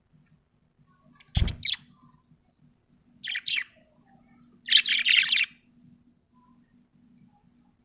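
Budgerigar chirping in three bursts: a short double chirp with a low thump about a second and a half in, a pair of chirps at about three and a half seconds, and a longer run of chirps around five seconds.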